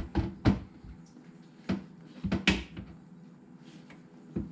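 A few sharp knocks and clicks of parts being handled and fitted inside a dishwasher while refitting its pump and motor assembly, most of them in the first two and a half seconds.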